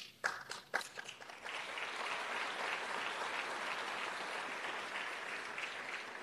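Audience applauding: a few scattered claps at first, then steady applause from about a second and a half in, dying away near the end.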